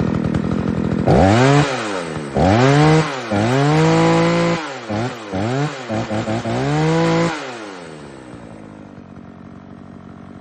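42cc Craftsman two-stroke chainsaw revved in a series of throttle blips, its pitch rising and falling with each, one held a little longer. Near the end it drops back to a quieter idle. The saw has been brought back to running order.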